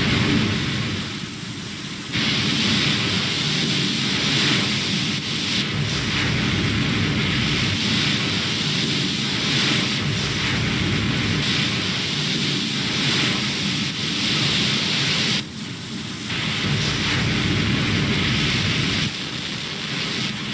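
Steady rushing noise with no distinct events, dipping briefly about a second in and again about fifteen seconds in.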